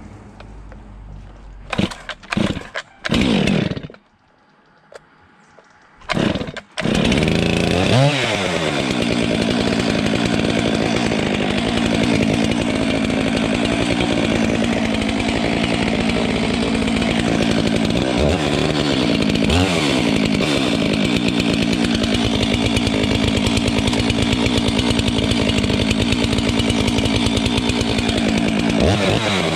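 Stihl MS 462 two-stroke chainsaw being pull-started: a few short bursts, then it catches about seven seconds in. After that it runs continuously at a high, steady note, with its revs falling and rising now and then.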